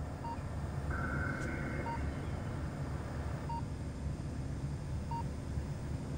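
Short electronic beeps from shipboard survey instruments, one about every second and a half, over a steady low hum of the ship. A higher held tone sounds for about two and a half seconds near the start.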